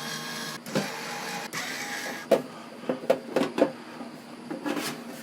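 Light knocks and clicks from things being handled on a workbench, about half a dozen sharp ones bunched from two to four seconds in, over a steady background hum.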